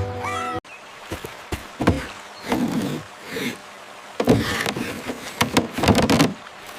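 Background music that stops abruptly, followed by a string of irregular knocks, thuds and scraping noises.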